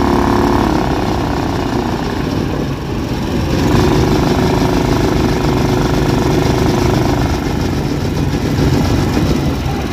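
The small gasoline engine of an 1980s Argo 8x8 amphibious ATV running as the machine drives, heard close up from the seat above the open engine bay. It gets a little louder about three and a half seconds in.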